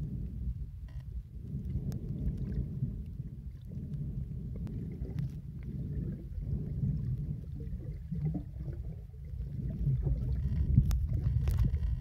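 Muffled rumble of moving water heard by an underwater camera, swelling and ebbing, with a few faint clicks scattered through it.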